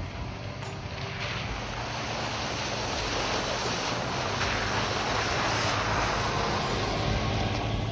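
Vehicle engine running low under a steady rushing noise, swelling slightly and easing again near the end.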